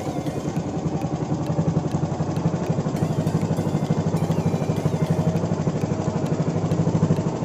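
Small inboard engine of a motorised outrigger fishing boat (bangka) running steadily under way, with a fast, even chugging.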